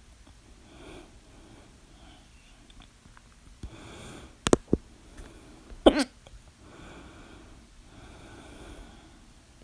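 A person with hiccups, breathing audibly between them. Two sharp clicks come about four and a half seconds in, then a loud voiced hiccup with a falling pitch about six seconds in.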